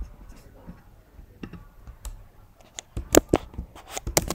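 Scattered keystrokes on a computer keyboard, a few at a time in short clusters with pauses between them.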